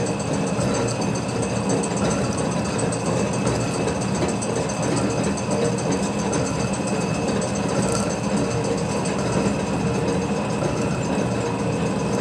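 Metal slotting machine running steadily, its drive and reciprocating ram giving a continuous mechanical drone while slotting a spline.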